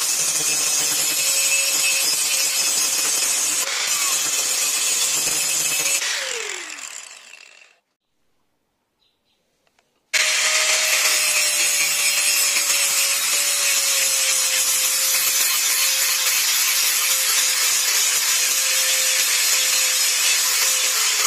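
Bosch angle grinder grinding the steel blade of an old knife, a steady high grinding with a held motor tone. About six seconds in it is switched off and winds down with a falling pitch, and after a couple of seconds of near silence the grinding starts again abruptly and runs on steadily.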